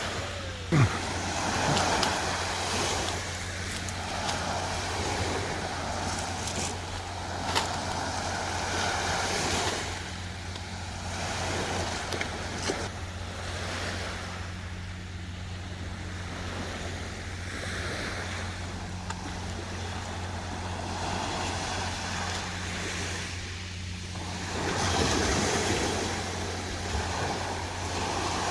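Sea waves washing onto the shore, the surf swelling and fading every few seconds, over a steady low hum. About a second in there is a short falling whine and a thump.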